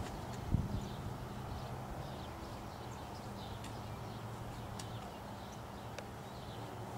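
Quiet outdoor background: a low steady hum with faint bird chirps, and one dull thump about half a second in.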